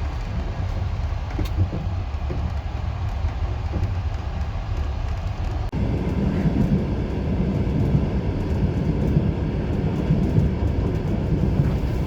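A passenger train running on the rails: a steady low rumble of the wheels and carriage. About six seconds in the sound changes abruptly to a louder, heavier rumble.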